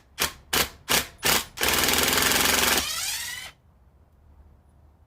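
Ryobi HP brushless impact driver (PBLID02) running in reverse on a wood screw: its hammer action comes in short pulses about three a second, then hammers continuously for just over a second. It then spins without hammering, its pitch falling as it winds down.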